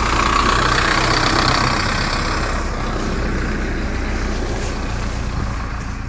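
Snow-plough tractor running close by: a steady low engine hum under a rushing hiss that is loudest in the first couple of seconds and then slowly fades.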